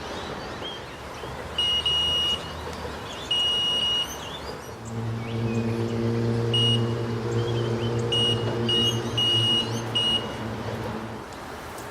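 Electronic carp bite alarm sounding a high, steady tone in beeps, two long beeps early and then a string of shorter beeps: line being pulled on the other rod, a fish picking up the bait. Through the middle a motor's steady low hum runs underneath and fades out.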